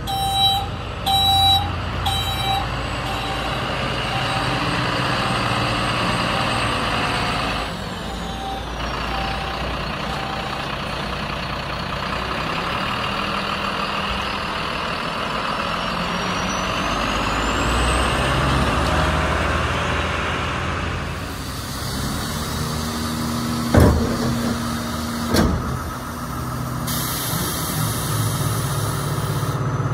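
Iveco AD260S33 refuse truck's diesel engine running, with its reversing beeper pulsing during the first few seconds. Later come two short, sharp air-release bursts about a second and a half apart, and a steady hiss near the end as the rear bin lifter works.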